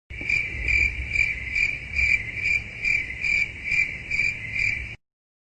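Cricket chirping: a high, steady chirp repeating a little over twice a second. It starts and cuts off abruptly, as an edited sound-effect clip.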